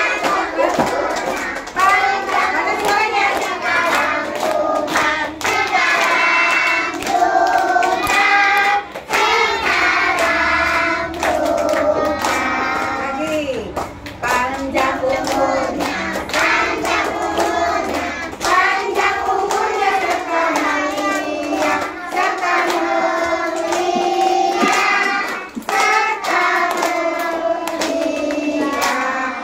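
A group of young children and teachers singing a song together, with steady hand-clapping in time throughout.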